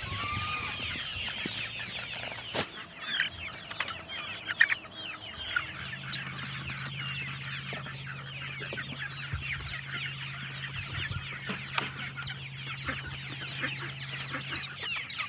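A flock of chickens clucking and chirping, with many overlapping short calls. A steady low hum comes in about six seconds in and runs beneath the birds, and there are a couple of sharp clicks.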